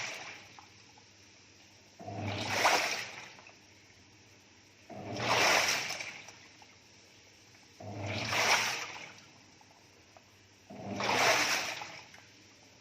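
Toshiba top-loading washing machine agitating a tub of water. The water swishes in repeated surges lasting about a second and a half, roughly every three seconds, each with a low motor hum underneath, and there are quieter pauses between the surges.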